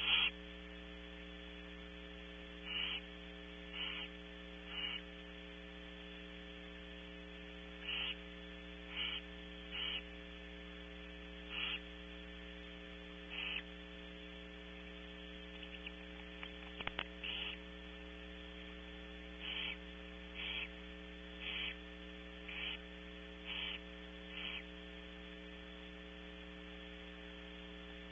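Barn owl giving a run of short, rasping hiss calls, repeated irregularly about once a second and typical of begging at a feeding. An electrical hum from the camera's audio runs steadily underneath, with a single sharp click about two-thirds of the way through.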